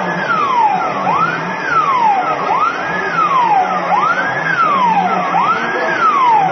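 Wailing electronic siren of a radio-controlled Tatra fire truck model, sweeping quickly up in pitch and then sliding down more slowly, repeating about every second and a half.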